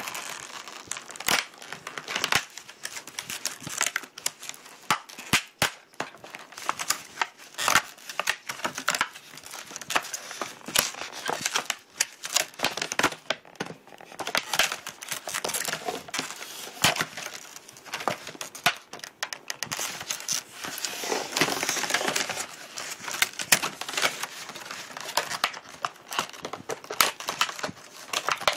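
Stiff plastic packaging being worked off by hand, crinkling, crackling and tearing, with many irregular sharp clicks and snaps.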